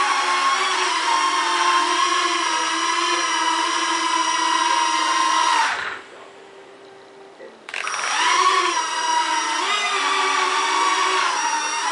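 Small quadcopters' motors and propellers whining in flight, the pitch wavering as the throttle changes. The sound drops away about six seconds in and starts up again abruptly almost two seconds later.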